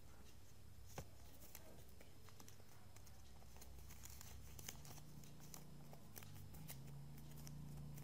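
Faint crinkling and rustling of origami paper being folded and creased by hand, with scattered soft clicks.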